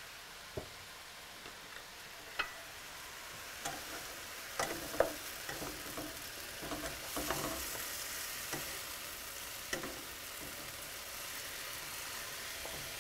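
Sliced cremini mushrooms sizzling in oil in a frying pan, with a utensil knocking and scraping against the pan now and then as they are stirred.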